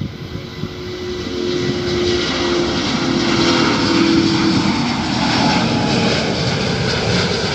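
Airplane engine sound, with a propeller-like drone, swelling louder over the first three seconds or so and then holding steady.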